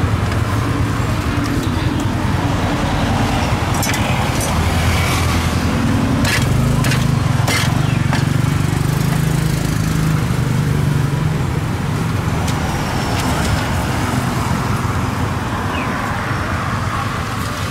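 Steady street traffic with a vehicle engine running close by; its low hum is strongest in the middle. A few sharp knocks of a knife on a wooden chopping board come about six to eight seconds in.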